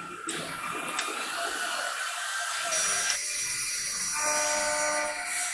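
ELE1325 ATC CNC router's spindle running with a high, steady whine over a hiss; the pitch of the whine changes about three seconds in.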